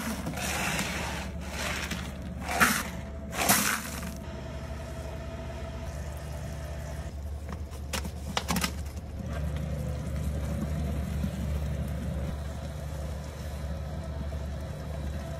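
Stainless popcorn kettle mixer running with a steady low hum as its blade stirs a bubbling sugar mixture. In the first four seconds come four bursts of rustling and scraping as coated popcorn is scooped; about eight seconds in, two short knocks as pieces are dropped into the kettle.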